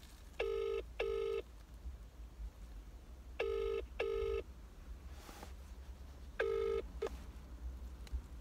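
British telephone ringback tone heard over a phone's speaker: the double 'ring-ring' of an outgoing call not yet answered, three times at about three-second intervals, the second half of the last one cut short.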